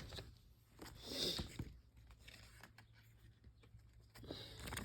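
Faint rustling of packaging being handled and opened, with a short rustle about a second in, a few light clicks, and another soft rustle near the end.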